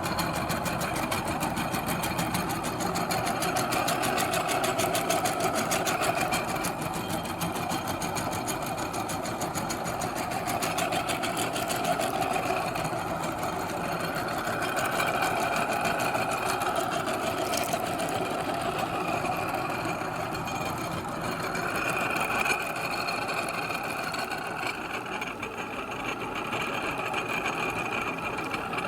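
Electric meat grinder running steadily, its motor making a dense, fast whirring hum.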